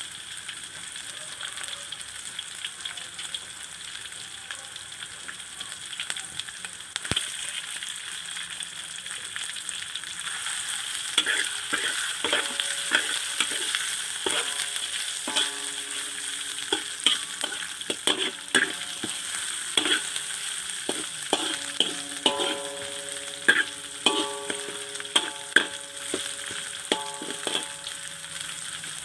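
Food sizzling as it fries in hot oil in a pan. From about twelve seconds in, a metal spatula or ladle stirs it, scraping the pan and striking it in repeated ringing clinks.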